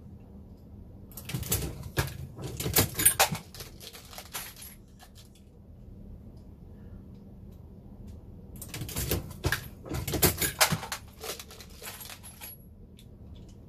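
Dillon Square Deal reloading press being cycled by hand: two bursts of metallic clicking and clatter a few seconds apart, with brass cases clinking.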